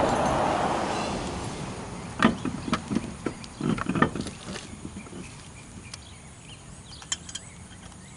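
Wrench working a lug nut onto a wheel hub: a run of irregular metal knocks and clinks, about two seconds in, after a brief rush of noise at the start, with a few faint clicks later.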